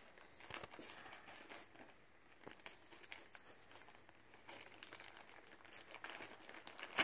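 Plastic poly mailer bag crinkling faintly as it is cut open with scissors, in scattered small crackles, with one sharper click near the end.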